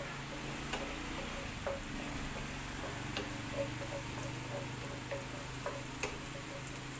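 Wooden spatula stirring sliced onions in a non-stick frying pan, knocking and scraping against the pan in irregular light clicks, a few each second, over a faint sizzle of frying.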